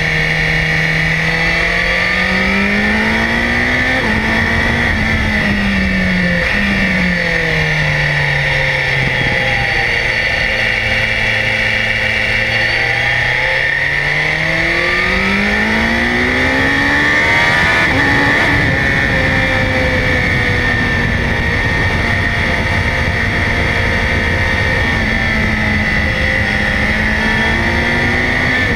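BMW S1000XR's inline-four engine under way, its revs climbing and falling repeatedly as the bike speeds up and slows through the bends, with a brief break in the pitch at about two-thirds through, over a steady rush of wind and road noise.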